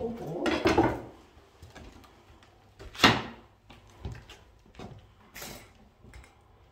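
Footsteps and scuffing on a littered floor, with one sharp, loud knock about three seconds in and a few fainter knocks after it.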